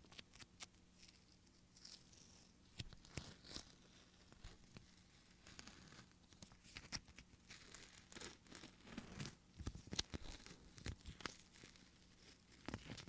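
Formula 10.0.6 peel-off facial mask being pulled away from the skin of the forehead and nose: a quiet, irregular run of crackling, tearing snaps, some sharper than others.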